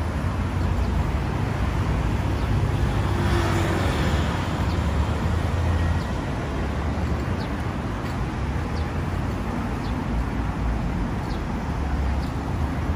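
City road traffic: cars and vans driving past on a busy multi-lane street as a steady rumble, with one vehicle passing close and swelling louder about three to four seconds in.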